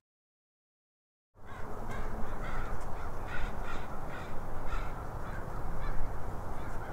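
Dead silence for a little over a second, then crows cawing, many short calls in quick succession over a steady background hiss.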